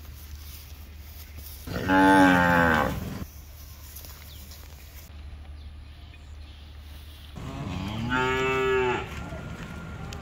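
Cattle mooing twice: a loud drawn-out moo about two seconds in, and a second, slightly quieter moo near the end, each lasting over a second.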